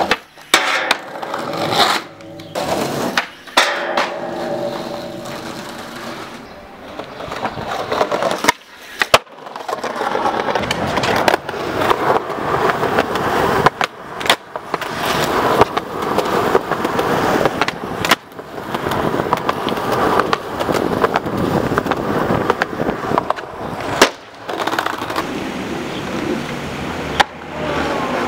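Skateboard wheels rolling over concrete and paving, broken again and again by sharp tail pops and board-slap landings, several tricks in a row.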